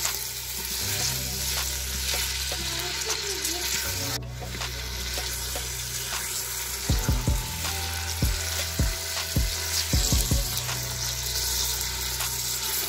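Beef cubes sizzling as they sauté in a Philips multicooker's inner pot while a silicone spatula stirs them. From about seven seconds in, a run of short knocks as the spatula hits the pot.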